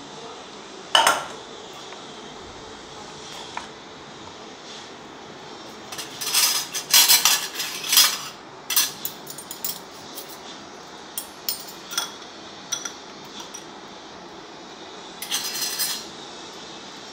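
Stainless-steel kitchenware clattering as noodles are served: a sharp clank about a second in, then a fork clinking and scraping in a steel pan and against bowls in bursts, busiest between about six and eight seconds and again near the end.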